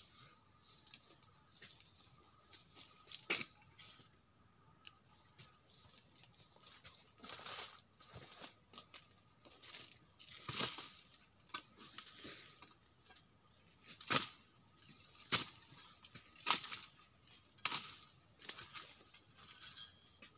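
Sharp knocks of a long-handled pruning tool chopping into oil palm frond bases, about ten irregular strikes, coming roughly once a second in the second half. A steady high-pitched insect drone runs underneath.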